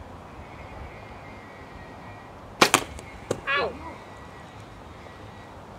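60 lb Bowtech Prodigy compound bow shot: a sharp crack about two and a half seconds in as the string is released, followed by a second, fainter snap a little over half a second later.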